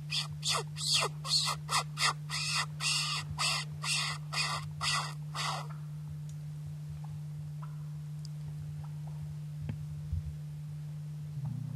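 A bird calling in a fast run of short, harsh calls, about three a second, that stops about six seconds in. A steady low hum runs underneath.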